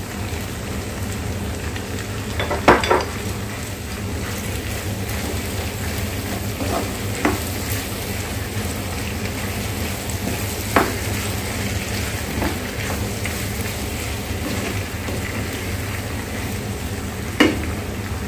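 Chicken sausage and vegetables sizzling steadily in a nonstick frying pan as they are stirred with a wooden spatula, with a handful of sharp knocks of the spatula against the pan.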